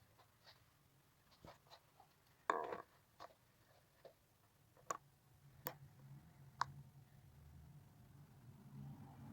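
Faint, scattered clicks and taps, with a short louder rattle about two and a half seconds in. About halfway through, a low hum sets in and grows slowly toward the end.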